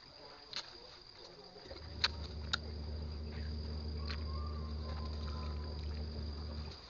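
Insects keeping up a steady high-pitched drone. From about two seconds in, a low steady hum sets in under it and stops just before the end, with a few sharp clicks scattered through.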